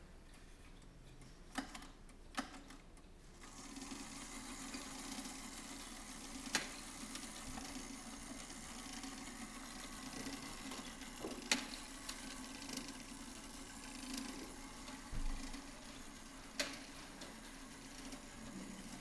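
Clock ticking with a couple of soft knocks, then about three and a half seconds in the automaton movement of a c. 1870 Black Forest dumpling-eater clock starts up: a steady mechanical whirring of its gear train, with a sharp click about every five seconds. The whirring stops near the end.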